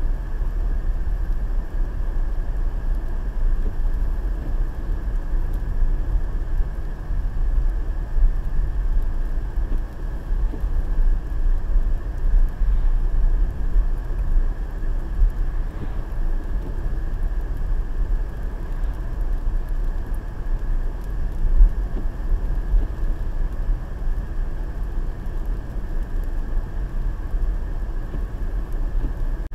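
Steady low rumble of a car cruising on an open road, heard from inside the cabin: road and engine noise picked up by a windscreen-mounted dashcam.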